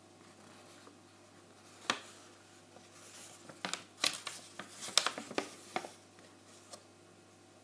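Paper instruction sheet rustling and crinkling as it is handled and turned over: one sharp crackle about two seconds in, then a flurry of crinkles from about three to six seconds in.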